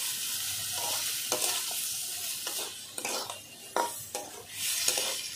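Boiled giant taro (mankochu) pieces sizzling in hot mustard oil and fried spice paste in a steel kadai, stirred with a metal spatula that scrapes and knocks against the pan several times.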